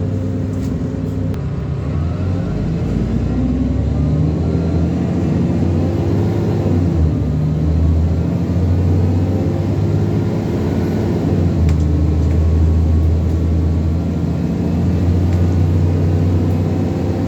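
Engine of an ADL Enviro400 Trident double-decker bus running under way, its low note rising and dropping a few times as the automatic gearbox changes gear.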